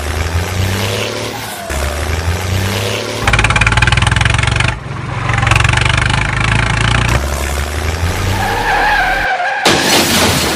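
Heavy-machine engine sounds, a deep steady running hum, cut together in short segments that change abruptly every second or two. A warbling higher tone comes in near the end, followed by a loud hiss.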